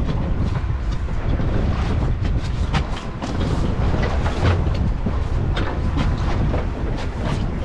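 A steady low rumble with irregular knocks and clicks on a fishing panga at sea.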